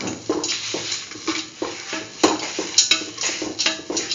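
A stirring utensil scrapes and tosses grated coconut, chickpeas and dried red chillies around a metal pan while they are sautéed, at about three strokes a second. A few sharp clicks come where the utensil strikes the pan.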